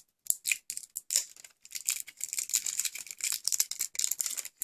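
Plastic packaging crinkling and crackling as it is handled to free a phone battery, a dense, irregular run of small crackles.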